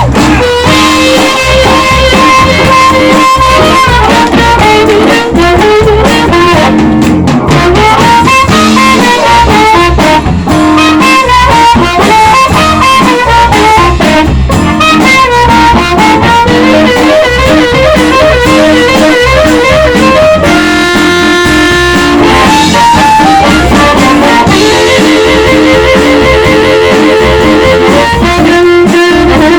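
Live blues band playing an instrumental: harmonica leading with held notes that bend and slide in pitch, over electric guitar, bass and drums.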